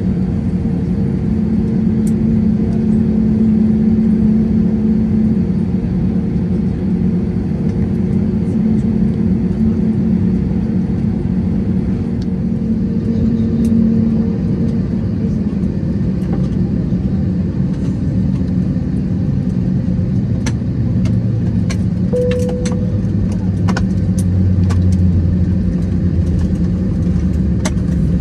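Airbus A320neo's CFM LEAP-1A turbofan engines running at taxi idle, heard from inside the cabin as a steady hum. The hum carries a couple of steady tones that fade out about halfway through, and a deeper rumble follows. A scatter of light clicks comes near the end.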